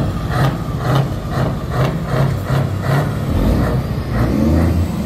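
Heavy truck engine running with a pulsing rumble at about two pulses a second, then revving deeper and louder about three and a half seconds in.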